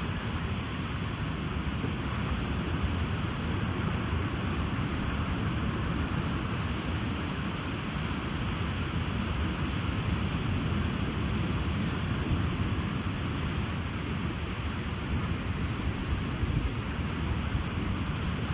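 Ocean surf washing on a beach, with wind buffeting the microphone in a low rumble underneath. It is a steady wash without distinct breaking waves.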